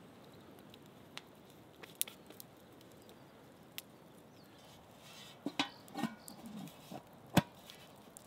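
Wood campfire crackling with scattered sharp pops. About two-thirds of the way through comes a short run of louder knocks and clatters, and near the end a single sharp knock, the loudest sound.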